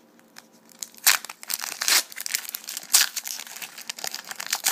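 Foil wrapper of a 2011 Panini Gridiron Gear trading card pack crinkling as it is torn open by hand. Sharp bursts come about one, two and three seconds in, with lighter crackles between.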